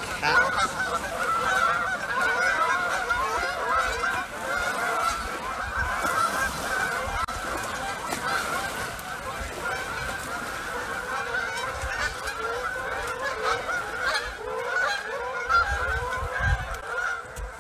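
A large flock of geese honking continuously, many calls overlapping.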